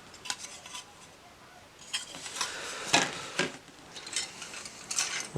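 Plastic model-kit parts trees being handled, with scattered light clicks, rattles and rubbing as the plastic pieces knock against each other.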